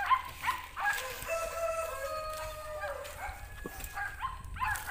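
A rooster crowing once: one long, level call lasting about two seconds, with shorter calls before and after it.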